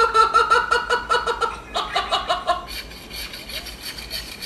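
High-pitched laughter in quick pulses for the first two and a half seconds, then a hand saw cutting back and forth through a small conifer's trunk in rapid rasping strokes.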